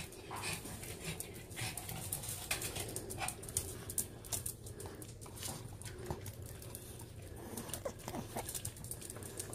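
Small dogs moving about on a tile floor, with light, irregular clicks of their claws and a few brief, faint whines about eight seconds in.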